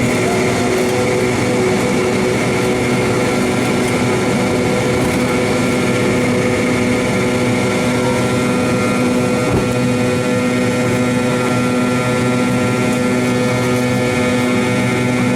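Cabin noise of an MD-88's rear-mounted Pratt & Whitney JT8D engines running at high power: a loud, steady hum with several held whine tones. A brief low thump about nine and a half seconds in.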